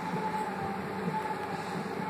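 Steady mechanical hum with a faint high tone held above it, unchanging throughout.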